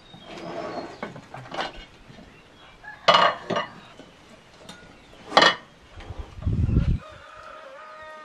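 Dishes and utensils clattering: a few sharp knocks, the loudest about three seconds and five and a half seconds in, then a dull low thump about a second later.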